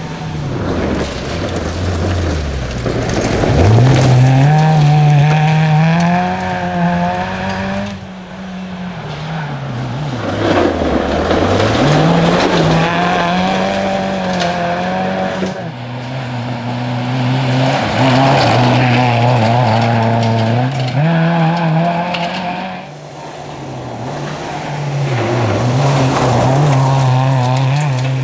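Dacia Logan rally car's engine revving hard through the gears on a gravel stage, its pitch climbing and then dropping again with each gear change and lift of the throttle. The car comes past in several separate passes, each swelling and fading.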